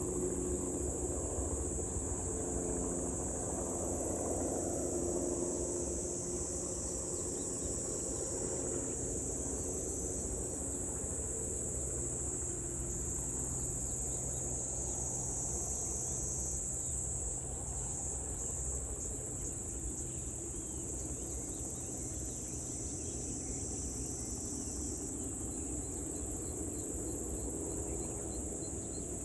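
Insects chirping steadily in a high continuous chorus, with a low steady drone beneath.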